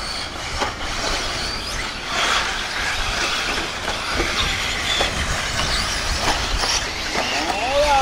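Electric off-road RC buggies racing on a dirt track: a continuous mix of motor and gear whine, rising and falling as they accelerate and brake, over tyre noise. Near the end one whine clearly sweeps up and back down.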